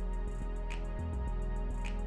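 Music with a slow, steady beat over sustained low bass notes.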